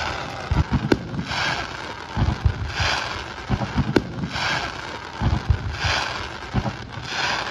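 Fireworks display: a run of deep booms and sharp cracks from shells launching and bursting, with swells of crackling hiss every second or two.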